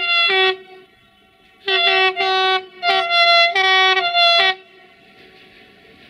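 Electric locomotive horn of a CFR Class 060-EA sounding: a short blast at the start, then after a pause a rapid run of about five short blasts, the pitch stepping slightly between them. After that the train's running noise rises as it approaches.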